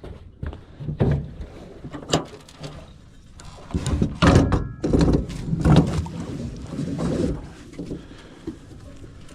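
A small boat's anchor being dropped: irregular knocks and clunks against the hull, then a denser, louder run of clattering and rattling in the middle that dies away toward the end.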